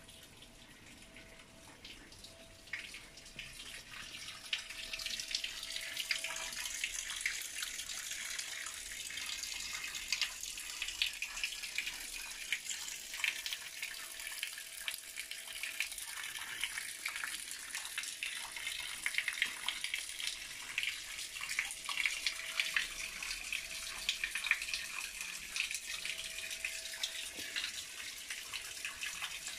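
Running water splashing steadily, growing louder over the first few seconds and then holding even.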